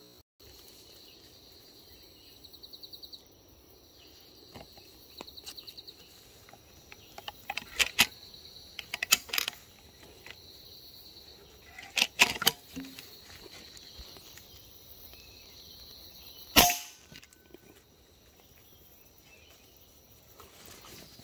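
An air rifle fires once about two-thirds of the way in, the loudest sound. Before it come scattered sharp clicks and knocks, over insects trilling steadily in the background.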